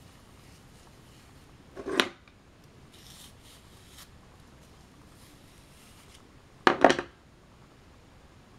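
Two sharp knocks about five seconds apart, the second a quick clatter of two or three, with soft rustling strokes of a bristle hairbrush through hair in between.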